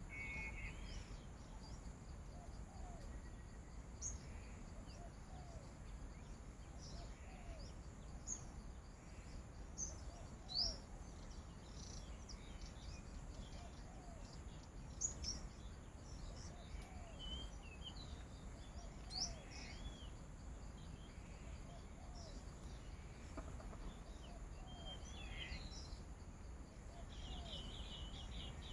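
Wild birds calling in woodland: scattered short high chirps, a lower short call repeating every second or two, and a fast buzzy trill near the end, over a faint steady low rumble.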